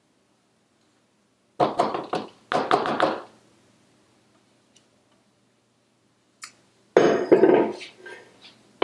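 A spatula knocking and scraping against a stainless steel mixing bowl in two quick clusters of taps while the last of the batter is worked out. Near the end the metal bowl is set down on the counter with a louder clunk and clatter.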